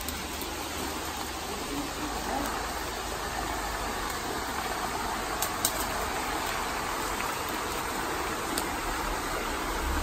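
Steady rushing of a small woodland stream and waterfall, with two short clicks about five and a half seconds in.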